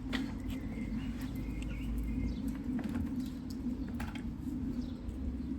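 Scattered light clicks and knocks from gearbox removal work on a van, over a steady low hum, with a few faint bird chirps in the first couple of seconds.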